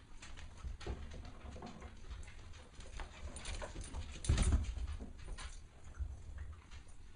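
Golden retriever puppies making small dog sounds amid short scuffling clicks, with one louder burst about four seconds in.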